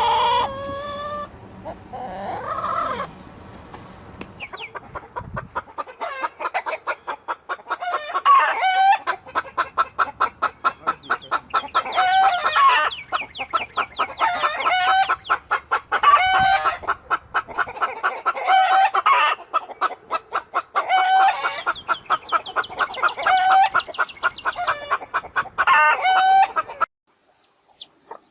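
Chicken calling: a drawn-out call at the start, then a fast, steady run of clucks broken every few seconds by a louder, longer squawk, stopping abruptly near the end. The pattern is typical of a hen's cackle.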